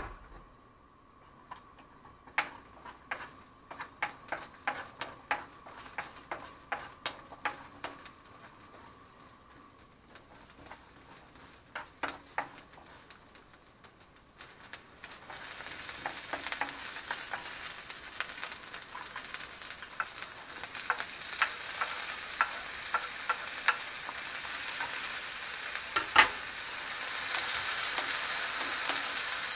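Garlic cloves frying in oil in a nonstick pan, crackling with scattered sharp pops over a faint sizzle. About halfway the sizzle jumps to a loud, steady hiss with dense crackling as sliced onion and carrot go into the hot oil and are stirred with a wooden spatula, with a single knock near the end.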